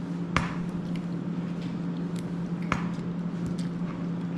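A steady low hum with two sharp clicks, about half a second in and near three seconds in, and a few fainter ticks, as a small hot sauce bottle with a metal cap is handled at a meal table.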